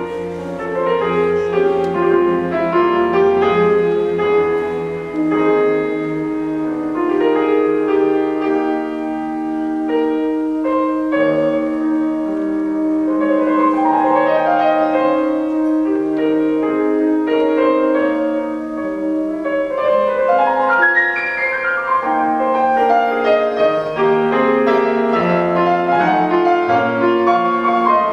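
Concert grand piano playing a classical concerto passage, with orchestral strings accompanying. A long note is held steady under the piano through the middle.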